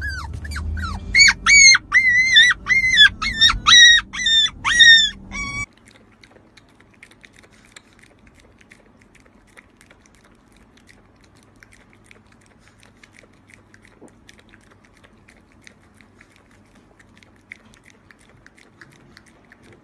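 A husky-type puppy giving a rapid run of about a dozen short, high-pitched yips and whines over a low car rumble. After it cuts off suddenly, a small dog's tongue gives faint, scattered lapping clicks at a drink.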